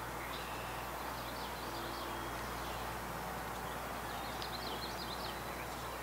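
Steady outdoor background noise, with a small songbird singing two short phrases of quick high notes, about half a second in and again about four seconds in.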